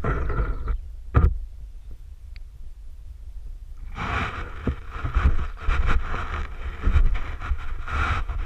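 Wind and handling rumble on the camera microphone. There is a sharp knock about a second in, and from about four seconds a rustling, scraping hiss with scattered clicks, like movement through dry sand and reed debris.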